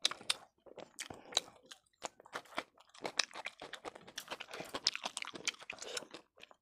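Close-up chewing and biting: wet mouth sounds of a person eating, broken by many short, sharp crunchy clicks that come thicker about halfway through.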